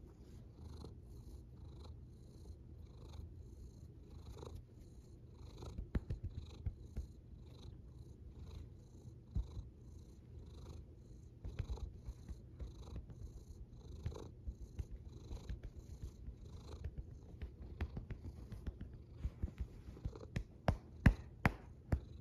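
Domestic cat purring steadily close to the microphone, a low rumble that swells and eases with each breath. Sharp clicks come in among it, growing louder and more frequent near the end.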